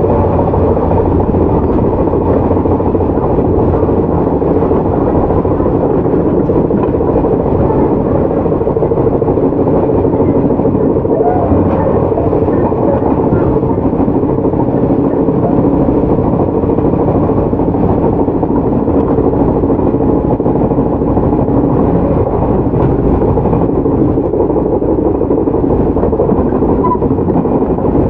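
Running sound of a Shizuoka Railway 1000 series resistor-controlled stainless-steel electric train, heard from inside the car as it travels along the line. It is a loud, steady rumble with a few faint steady tones, keeping an even level throughout.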